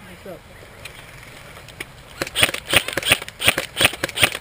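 Airsoft rifle firing a quick string of sharp shots, about three to four a second, starting a little past halfway.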